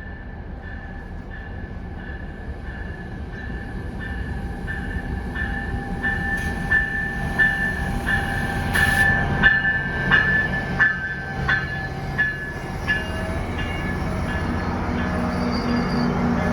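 Passenger train approaching, its low rumble growing steadily louder. Over it a bell rings at about one and a half strikes a second, stopping a few seconds before the end.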